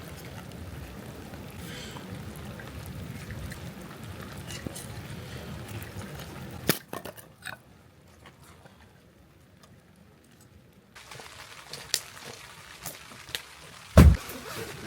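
Rain falling steadily, broken by a sharp knock about halfway through, after which it is much quieter for a few seconds. The rain then returns with scattered knocks and a loud thump near the end.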